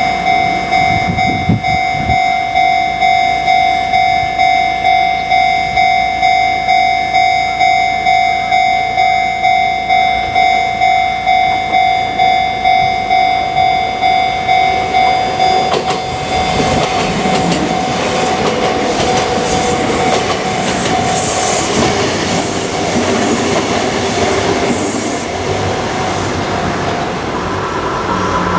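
Japanese level-crossing warning bell ringing in a steady pulse, about two strokes a second. About sixteen seconds in, a Kintetsu Minami Osaka Line train passes with rising rumble and wheel clatter over the bell, which stops near the end.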